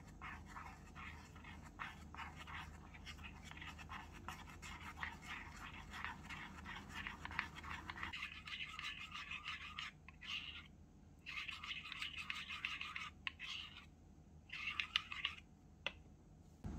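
Rapid, fast-repeating scraping and clicking of a small utensil working in a miniature bowl or pot. The strokes run steadily at first, then come in short spurts with brief pauses in the second half.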